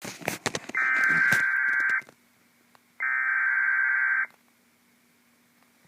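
Emergency Alert System SAME header data bursts for a severe thunderstorm warning: two loud, buzzy digital tone bursts, each a little over a second long, about a second apart. A few clicks and crackles come just before the first, and a faint low hum carries on after.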